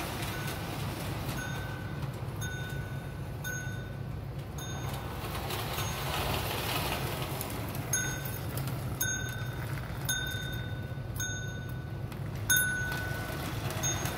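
Bell in the Lionel 1656 switcher's bell-ringing tender dinging about once a second, with a pause of a few seconds midway, over the steady rumble of the toy train running on the track. It shows the tender's bell mechanism ringing after repair.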